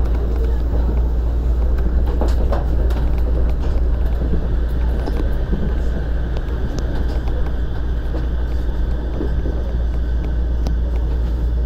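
Shonan Monorail 5000 series suspended monorail car running along its track beam, heard inside the car: a steady low rumble and hum with a few faint clicks.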